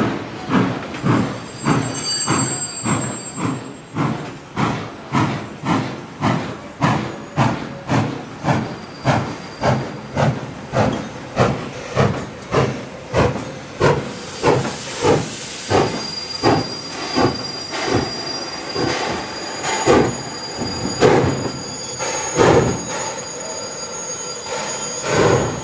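Pere Marquette 1225, a 2-8-4 Berkshire steam locomotive, moving its train slowly past with a steady beat of about two strokes a second that slows a little in the second half. A hiss of steam and a thin high squeal come in as the locomotive draws close.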